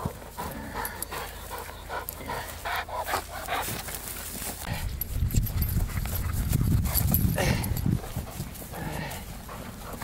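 Dog panting during bite-sleeve protection training, with short sharp sounds through the first half and a heavier low rumble from about five to eight seconds in.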